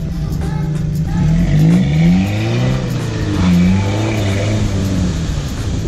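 Pickup truck engine revving up and down as it drives into a mud pit, rising in pitch about a second and a half in and again about three and a half seconds in.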